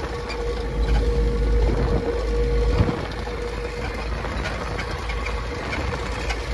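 Tata 1109 truck's diesel engine running under load, heard from inside the cab while driving, with road rumble. There is a short knock about three seconds in, as the gear lever is worked. The engine is running steadily, without jerking or cutting out.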